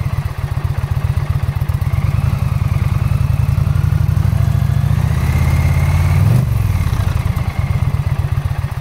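Indian Pursuit's V-twin engine idling, heard at the exhaust muffler as a steady low pulsing. About six seconds in the revs lift briefly and fall back to idle.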